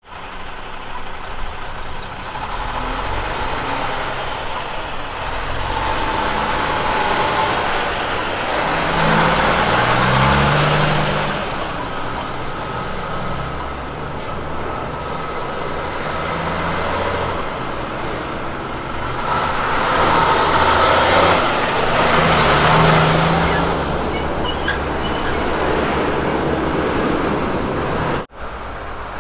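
Heavy diesel truck engine of a Kenworth prime mover hauling a fuel tanker road train, running under load as it pulls through and past, with tyre and trailer noise. The engine note swells twice, about a third of the way in and again around two-thirds in, with a second truck following. The sound cuts out briefly near the end.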